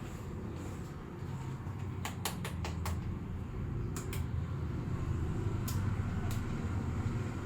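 Head massage by hand: a quick run of about five sharp clicks and taps about two seconds in, then a few single clicks, over a steady low rumble.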